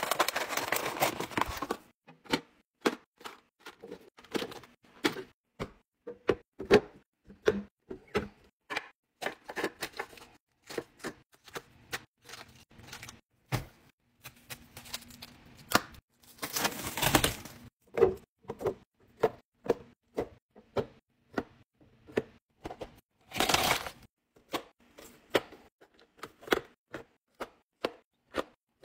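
Food and containers being handled and set down while restocking a fridge: many sharp clicks and knocks. Three longer bursts of rustling come at the start, about two-thirds of the way through, and again a few seconds later.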